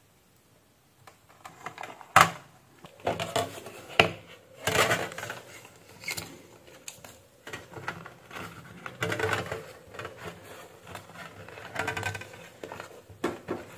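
Hands fitting a small LED driver circuit board into a plastic ceiling-light housing: irregular clicks, taps and rustles, with a sharp click about two seconds in and another about four seconds in.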